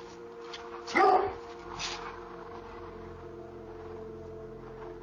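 A dog barks once loudly about a second in and once more, weaker, near two seconds, a warning bark at an intruder, heard through a doorbell camera's microphone. After that only a steady low drone remains.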